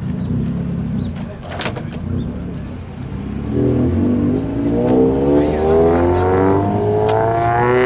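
Car engine rumbling low, then accelerating hard through its exhaust, the note climbing steadily for the last four seconds or so.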